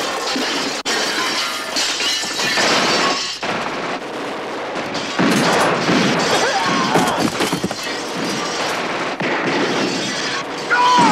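Action-film sound mix of crashing and shattering as a body comes down through a ceiling, dense and continuous, with many sharp impacts.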